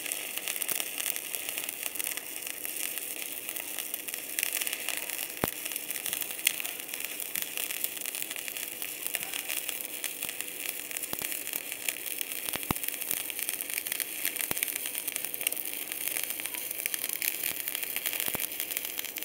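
Stick-welding arc crackling steadily as a 4 mm electrode burns at about 160 A on an Arc200 inverter welder, with a few sharper pops along the way.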